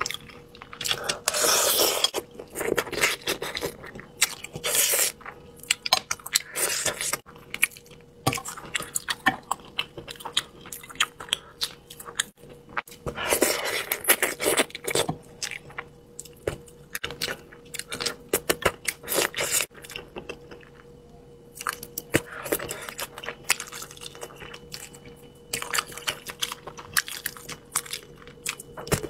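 Close-miked eating of spicy braised fish: wet chewing and lip sounds as pieces of fish and skin are pulled off with chopsticks, with sharp chopstick clicks and scrapes. The sounds are loudest in two bouts, about 2 s and 14 s in.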